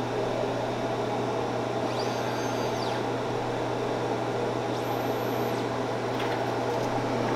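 Steady whirring hum of a Dremel Digilab LC40 laser cutter's exhaust fan, still running right after a short cutting job has finished.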